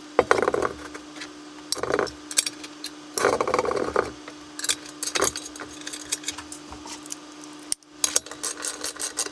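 Metal clinks, knocks and scrapes as a bench drill press's steel column is set onto its cast iron base and the bolts are turned with an Allen key, over a steady hum.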